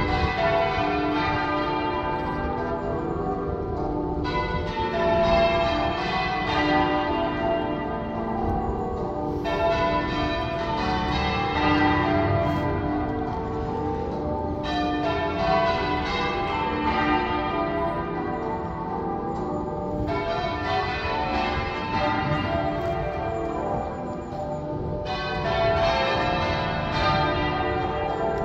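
Church bells being change-rung half-muffled, one side of each clapper padded so that every other blow sounds dull, the traditional mourning ringing for Remembrance. The ringing runs on without a break, with a short lull in the higher tones about every five seconds.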